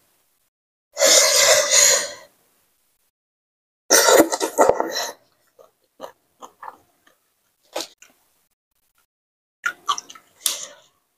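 Mouth sounds of a person eating spicy papaya salad: two loud, long, noisy sucking sounds about a second in and about four seconds in, then quieter wet chewing clicks and lip smacks.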